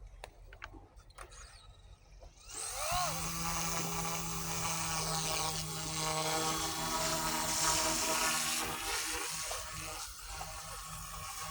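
Small electric radio-controlled helicopter running: after a few clicks, its motor and rotor come in about two and a half seconds in with a brief rising whine, then hold a steady hum with a hiss of wind over it.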